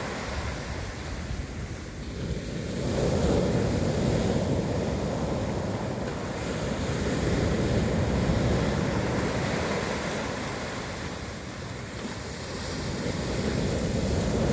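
Sea waves washing in on the shore, the surf swelling and ebbing every few seconds.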